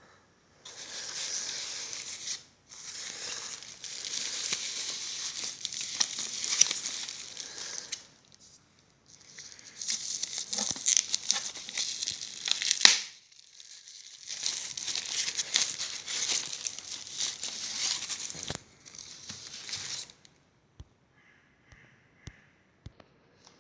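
Packaging being unwrapped by hand: long stretches of crinkling and tearing with a few short pauses, the loudest crackle about two-thirds of the way through, then a few light clicks and taps near the end.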